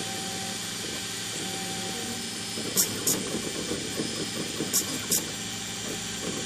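Stepper motors of a homemade Arduino/GRBL two-axis CNC plotter buzzing through short moves over a steady hiss, with a thin whine in the first two seconds. About halfway through come four short high-pitched buzzes in two pairs, from the servo lifting and lowering the marker pen.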